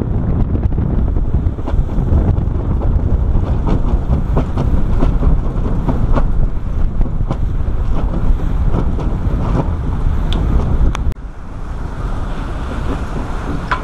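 Strong wind buffeting the microphone aboard a sailing yacht under way, over the rush of water, with scattered sharp ticks; the noise drops abruptly to a quieter, steadier rush about three-quarters of the way through.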